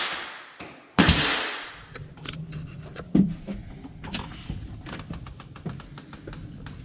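A pneumatic finish nailer fires once about a second in, a sharp bang followed by a hiss of air that trails off, as molding is nailed back along the wall. A thud then follows, and a run of light clicks from a brass doorknob and latch being worked as a door is opened.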